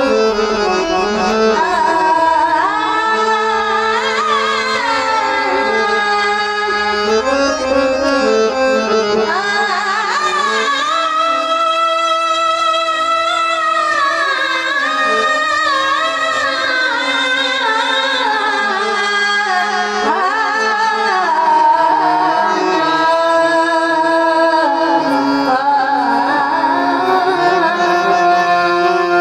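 A high-pitched voice singing a Marathi devotional kirtan melody in long held notes with slow slides between pitches, over instrumental accompaniment with tabla.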